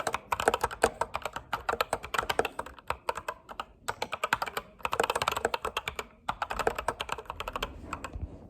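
Computer keyboard being typed on quickly: fast runs of keystroke clicks, with short pauses about four and six seconds in, dying away near the end.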